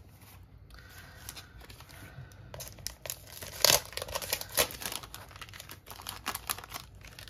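Clear plastic packaging sleeve and paper sheets crinkling and rustling in irregular crackles as rub-on transfer sheets are handled and put back into the sleeve; the loudest crackles come a little past the middle.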